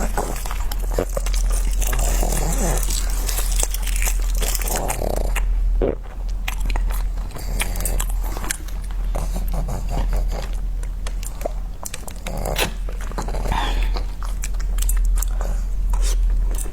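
Close-miked chewing and biting of food: many small wet smacks and clicks from the mouth, with occasional crunches, over a steady low electrical hum.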